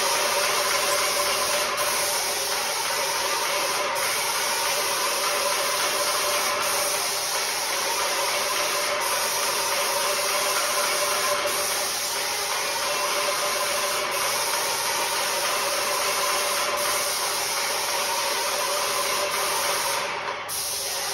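Spray gun spraying onto glass: a steady, loud hiss of spray over the even hum of the sprayer unit feeding the hose. It stops about 20 seconds in.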